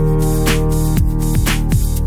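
Background music with a steady beat: held chords over a deep kick drum about twice a second.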